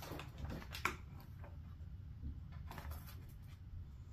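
A few faint, sharp clicks and taps, the clearest about a second in, from gingerbread pieces and candy being handled on a table, over a low steady room hum.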